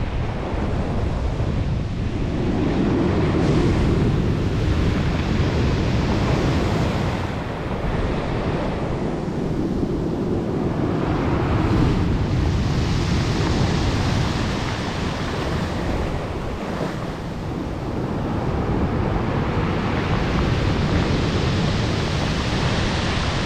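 Storm surf on the Black Sea: heavy waves breaking and rushing on the shore in a continuous low rumble that swells and eases every several seconds, with wind buffeting the microphone.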